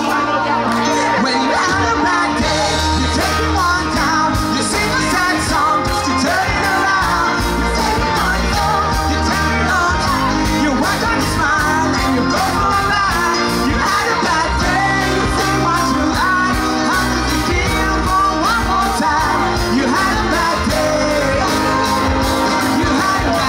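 Live band playing a song with a steady beat, a man singing lead into a microphone.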